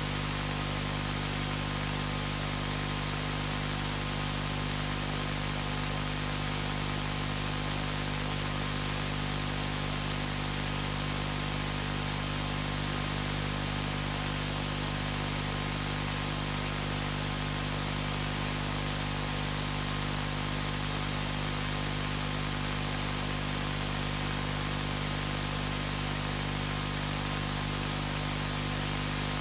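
Steady static hiss with a low electrical hum underneath: background noise of the recording, with no speech.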